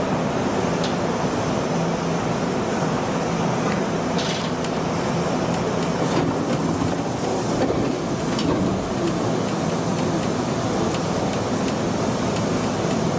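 Nagoya Municipal Subway 3000 series electric train running, heard from the driver's cab: steady running noise with a low hum and a few sharp clicks.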